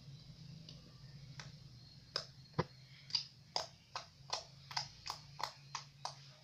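Milky glue slime being squeezed and poked, giving a regular run of crisp popping clicks, about two or three a second, starting about two seconds in, over a low steady hum.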